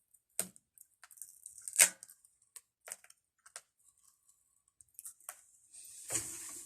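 Plastic packaging crinkling and tearing as the protective seal is pulled off a new air fryer: scattered clicks and crinkles, a sharp crackle about two seconds in, and a longer rustle near the end.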